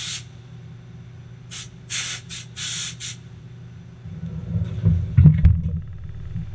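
Several short hissing blasts inside a Haas ST10 CNC lathe's enclosure, then the lathe's sliding enclosure door rumbling shut with a couple of knocks about five seconds in, over a steady low machine hum.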